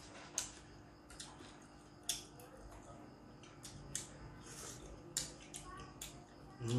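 Eating sounds: a cooked prawn bitten and its shell peeled by hand, heard as a scatter of short clicks and crackles, with a brief low voice sound near the end.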